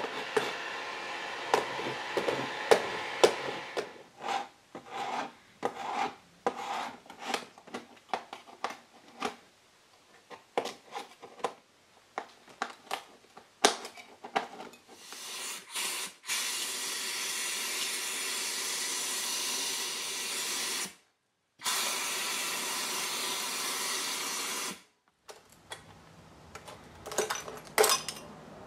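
A heat gun's fan blowing a steady hiss in stretches, alternating with a putty knife scraping and chipping softened old glazing putty out of a wooden glass door's rebates in short clicks and scrapes. Near the end, pieces of broken window glass clink as they are lifted out.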